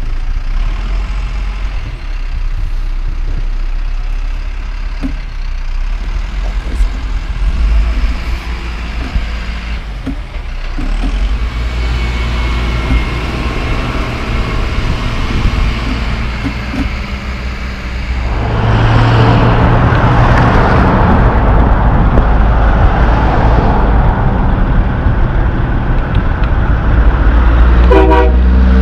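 Caterpillar wheel loader's diesel engine running at a low, steady note. About two-thirds of the way through it gives way to a louder heavy diesel truck: the Caterpillar-powered Kenworth T800H dump truck out on the road.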